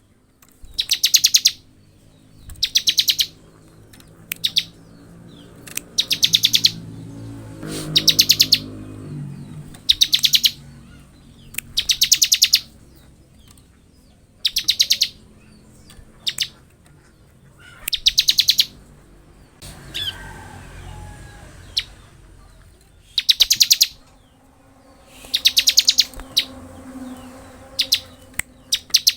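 Bar-winged prinia (ciblek) singing in its 'ngebren' style: short, fast, high trills of rapid ticks, repeated roughly every two seconds.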